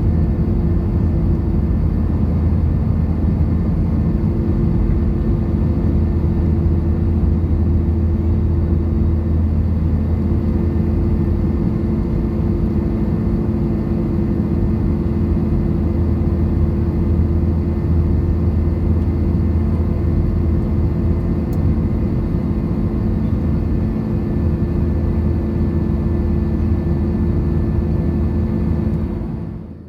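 Airbus A321 jet engines heard from inside the passenger cabin: a loud, steady drone with low hums running through it. It drops away sharply just before the end.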